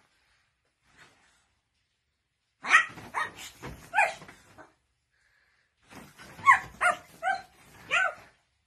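Black pug barking: a run of about four sharp barks starting about three seconds in, then after a short pause a second run of about five.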